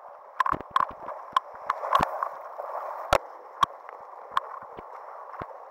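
Whitewater river rapids rushing steadily, with a dozen or so sharp knocks and taps close by, the loudest about two and three seconds in.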